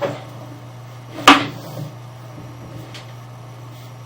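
A single sharp knock about a second in, over a steady low hum, with a lighter click at the start.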